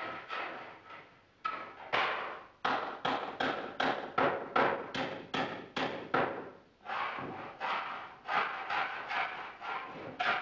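Hammering on wood: a long run of sharp blows, mostly about three a second, with a short pause near the middle before the blows resume.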